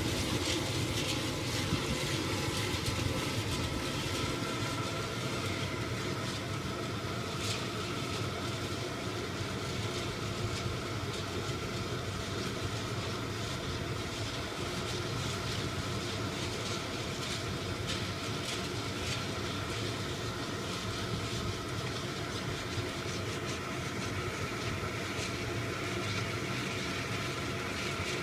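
Propane burner under a kettle corn kettle, burning with a steady rushing sound, with a few faint clicks scattered through it.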